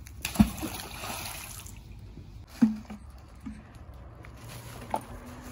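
Canal water splashing and trickling for a second or so, with three dull knocks: one early in the splash, one near the middle and a lighter one near the end.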